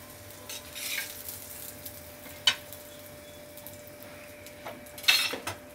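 A few short clinks and scrapes of a steel flat spatula against a plate and the iron tawa, the sharpest about two and a half seconds in and a cluster near the end, over a faint steady sizzle of oil on the hot plate.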